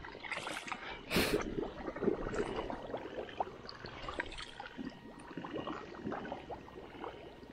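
Wading steps sloshing and splashing through shallow water and mud among weeds. Small irregular splashes run throughout, the loudest a little over a second in.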